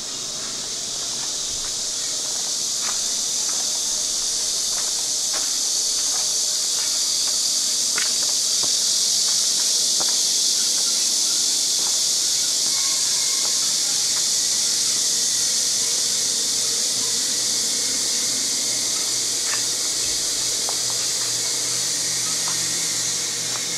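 Cicadas singing in a loud, steady chorus that swells over the first few seconds and eases slightly near the end, with a few faint ticks beneath it.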